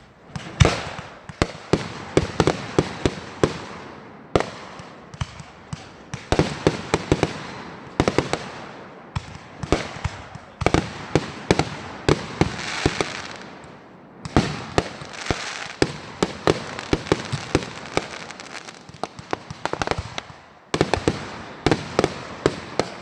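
Fireworks going off: a long, irregular string of sharp bangs and cracks, often several a second and bunched in rapid clusters, with crackling and hiss between them.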